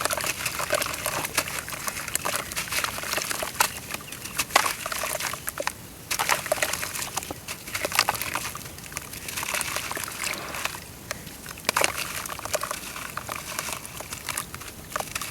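Chunks of dry brown dirt crumbling apart in water: dense fine crackling with small sloshes, easing briefly twice.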